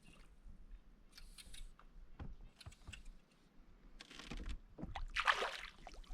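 Water sloshing and splashing faintly against a small boat, with scattered light knocks and clicks, and two louder splashy rushes about four and five seconds in.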